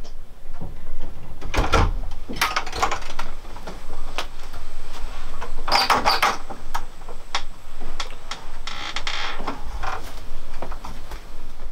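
A string of clicks and knocks from a wooden door as its lever handle and latch are worked and the door is opened. The loudest clatters come about two seconds and six seconds in.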